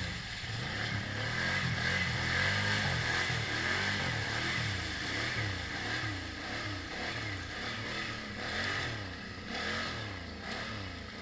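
Snorkeled ATV engine running under throttle, its pitch rising and falling as the rider works the throttle through muddy water and across mud.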